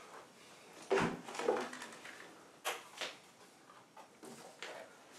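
Faint handling noise from safety gear: rustling and a few soft knocks and clicks as safety goggles and earmuffs are taken off, set down and put on. The firmest knock comes about a second in.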